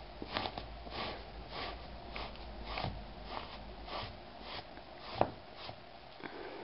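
Handheld pet-hair remover brushed in quick strokes across a woven rag rug: a scratchy swish about twice a second as it drags cat hair out of the fabric.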